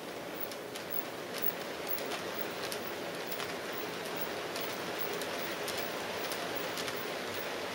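OO gauge model train, a blue diesel locomotive hauling a long rake of hopper wagons, running on the track: a steady running noise from the wheels and motor, broken by light clicks every half second or so.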